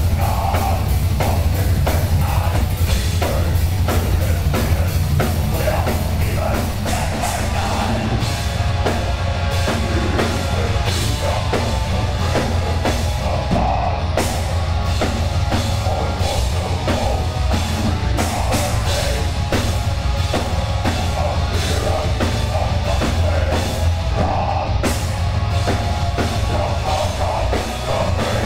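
Heavy metal band playing live and loud: electric guitar and bass guitar over a drum kit beating fast and steady.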